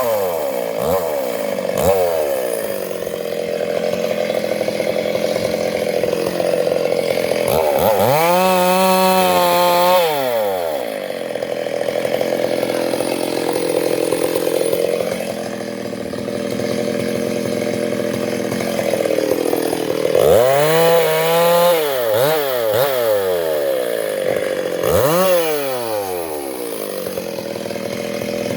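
Two-stroke chainsaw cutting teak wood, running steadily under load, its engine revving up and dropping back several times.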